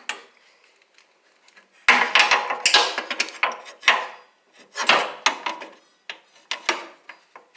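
Hand tools clinking and rattling against metal as screws are worked out of an old table saw: a run of irregular sharp clinks and knocks, starting about two seconds in after a brief quiet.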